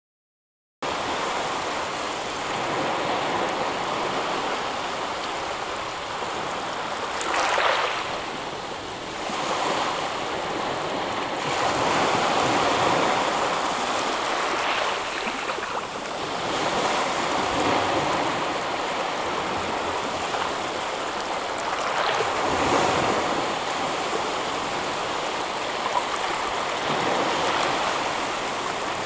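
Ocean waves washing onto a shore: a continuous rush of surf that swells each time a wave breaks, starting suddenly about a second in.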